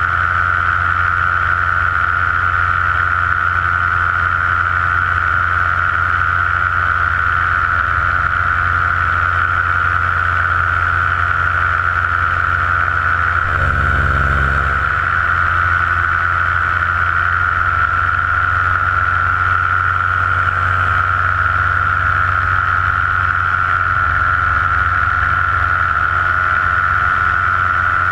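Paramotor engine and propeller running steadily in flight, heard from right beside the pilot's head: a low drone with a strong high whine on top. The low part of the sound briefly changes about halfway through.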